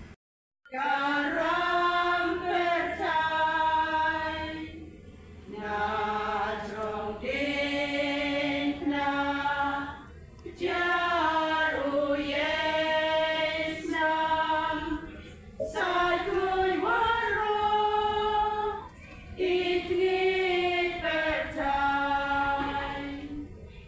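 A choir of women singing unaccompanied in long, held phrases with short pauses between them, starting about a second in.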